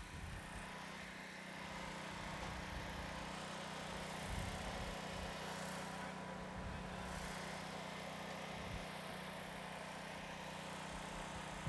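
Steady low mechanical hum of background engines or machinery, even throughout, with no revs, pass-bys or sharp events.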